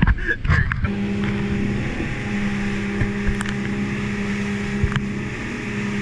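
250-horsepower outboard motor pushing a boat at speed, a steady drone under the rush of water from the wake and wind on the microphone.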